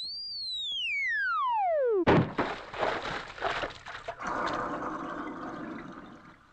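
Cartoon sound effects: a whistle tone slides down from high to low, as for a fall, and is cut off about two seconds in by a big splash into a wooden tub of water. Splashing and then gurgling bubbles follow, fading out.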